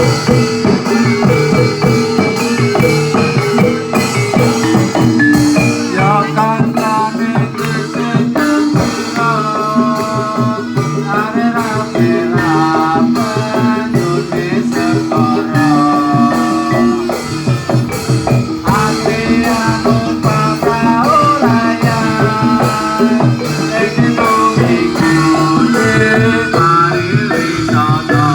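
Javanese jathilan accompaniment music played steadily: drums and metallic gamelan-style percussion under a gliding melody line.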